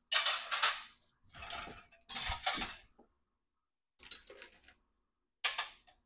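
Stainless steel forks, spoons and a knife clinking against each other and against a ceramic plate as they are handled and laid down, in five short clattering bursts.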